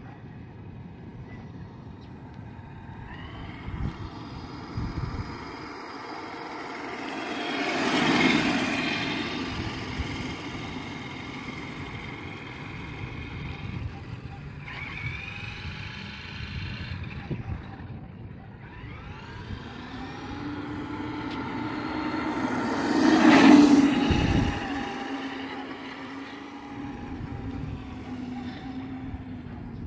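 Traxxas X-Maxx electric RC monster truck driving on pavement: its brushless motor and drivetrain whine, rising and falling in pitch with speed, over tyre noise. It grows loudest as the truck passes close twice, about a quarter of the way in and again about three quarters through.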